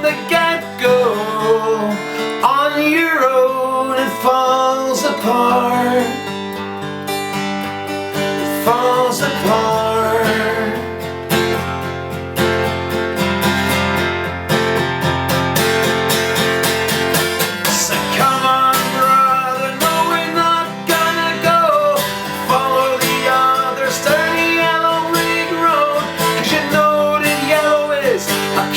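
Music: a solo acoustic guitar strummed and picked steadily, with a wordless voice line bending over it in places.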